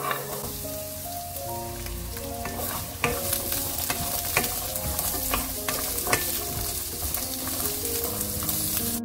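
Sliced garlic sizzling in hot oil in a nonstick frying pan while a wooden spatula stirs it, with a few sharp taps of the spatula against the pan.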